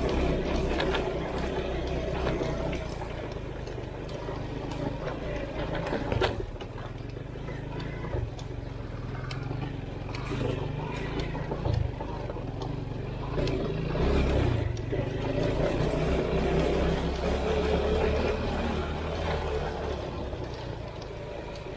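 Engine of an all-wheel-drive off-road motorcycle running while riding, its note rising and falling with the throttle, with a few short knocks from the rough track.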